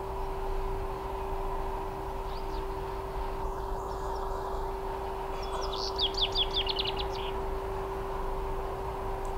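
Common chaffinch singing one song phrase about six seconds in: a quick run of about ten falling notes ending in a short flourish, with a few faint notes a few seconds before. A steady low hum and a low rumble run underneath.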